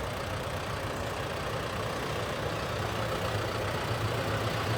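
An engine running steadily at low revs, growing a little louder toward the end.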